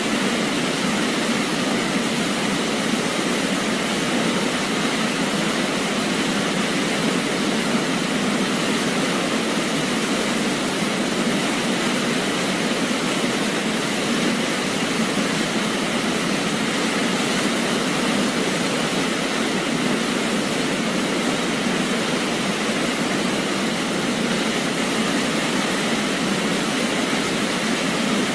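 Waterfall: a steady rush of falling water with no breaks.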